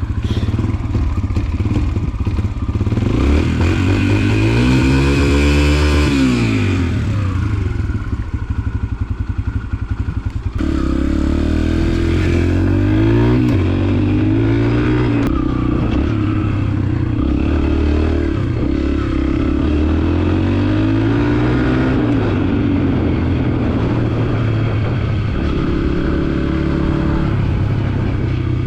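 Yamaha TT-R125 trail bike's air-cooled single-cylinder four-stroke engine being ridden, its revs climbing and dropping again every few seconds with some mechanical clatter. The engine note changes abruptly about ten seconds in.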